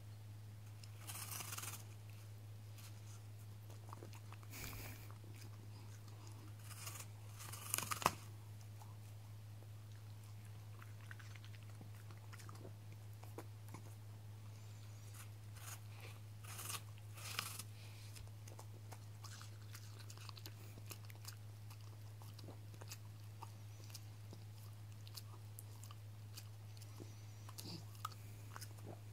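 Border Terrier biting and chewing a whole raw apple: irregular bursts of crunching between smaller chewing clicks, the loudest crunch about eight seconds in. A steady low hum runs underneath.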